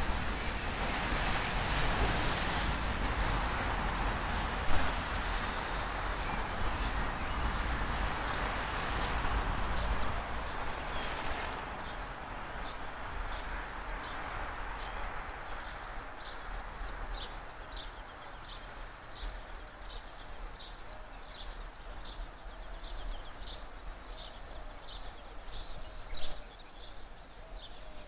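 A distant rail maintenance train running past, a steady noise that drops away about eleven seconds in. After that a small bird repeats a short high chirp about twice a second over faint train noise.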